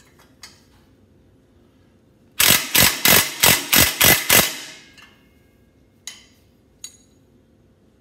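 Ratchet wrench tightening the exhaust bracket bolts: a quick run of about seven loud metallic ratcheting strokes, roughly three a second, starting a couple of seconds in. A few lighter clicks of the tool against metal come before and after.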